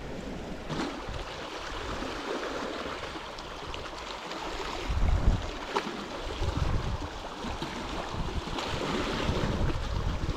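Small sea waves washing and splashing against a rocky reef at the water's edge, with wind buffeting the microphone in gusts, the strongest about five seconds in.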